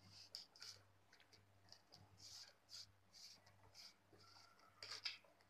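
Faint, scattered short scratching and crunching sounds of potato chips being eaten and crumbs picked off a plate, about a dozen small noises.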